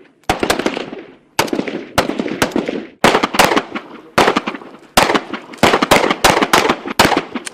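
Gunshot sound effects: a run of sharp shots, a few a second in irregular clusters, each trailing off in an echo.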